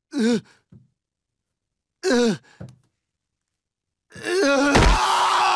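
A cartoon baby's voice giving two short, pained groans from a bad sunburn after hours in a tanning bed. Near the end comes a loud noisy stretch with a thump about five seconds in.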